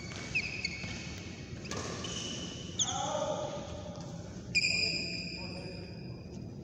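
Sports shoes squeaking on badminton court mats in a large echoing hall: several sudden high squeaks that ring on, the loudest about four and a half seconds in. A few sharp clicks of shuttlecock hits and a voice sound behind them.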